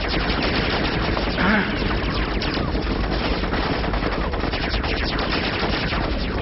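Sustained rapid gunfire from many guns at once: a dense, unbroken stream of shots.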